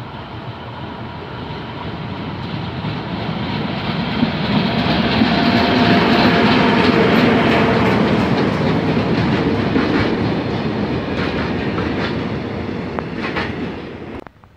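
Freight train of tank wagons passing close by, its wheels clattering over the rail joints. It grows louder to a peak midway, fades with a run of clacks, and cuts off suddenly near the end.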